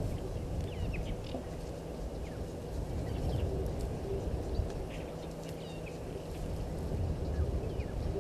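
Brief, faint high bird chirps scattered throughout, over a steady low rumble with a faint hum.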